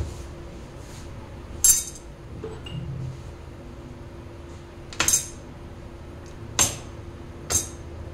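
Steel kitchen utensils clinking: four sharp metallic clinks a second or more apart, over a faint steady hum.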